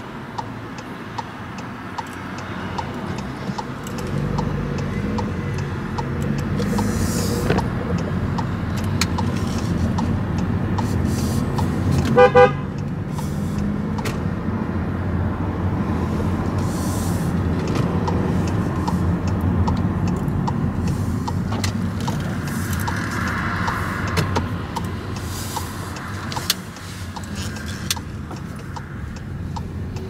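Car engine and road noise from inside the cabin while driving, growing louder as the car pulls away about four seconds in. A short car-horn toot sounds about twelve seconds in.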